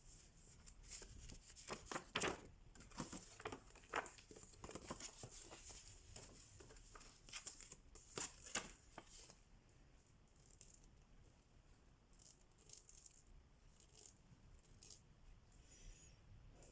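Close-up handling sounds of cross-stitch materials: soft crinkling, rustling and tearing-like scrapes with small clicks. They are dense in the first half and sparser and fainter after.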